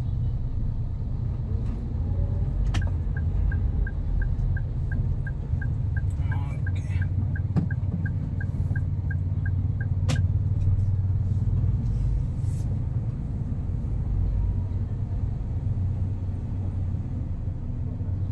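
Car driving with a steady low rumble. From about three seconds in, a turn-signal indicator ticks evenly at about three ticks a second for some seven seconds, with a sharp click where it starts and where it stops.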